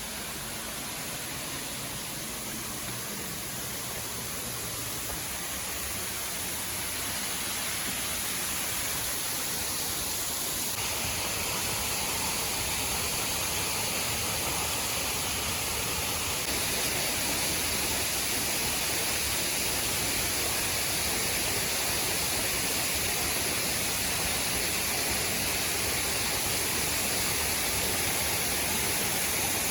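Waterfall rushing in a steady, even roar of falling water, slowly growing louder.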